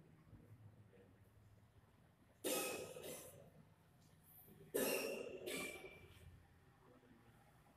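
A person coughing twice, each cough a double burst with a sharp start that fades away, the second about two seconds after the first.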